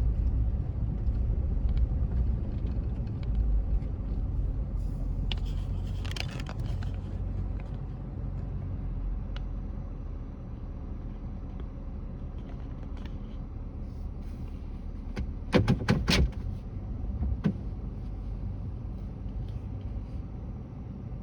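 Motor vehicle running with a steady low rumble that slowly grows quieter. A brief rattle comes about six seconds in, and a quick cluster of sharp clicks or knocks comes about sixteen seconds in.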